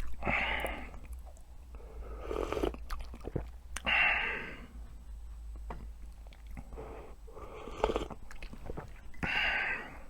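Close-miked eating: a person chewing with wet mouth clicks and smacks, broken every couple of seconds by a louder noisy swell of the mouth working on food.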